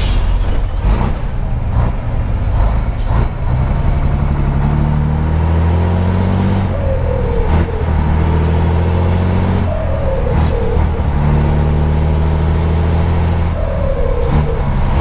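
Scania 112's 11-litre six-cylinder turbo diesel heard from inside the cab, pulling hard under acceleration. Its note climbs and then drops off at a gearshift three times, with a faint high turbo whistle above it. A few sharp clicks come in the first three seconds.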